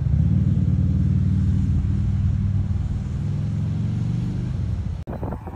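A loud, steady low engine drone that starts abruptly and cuts off just before the end.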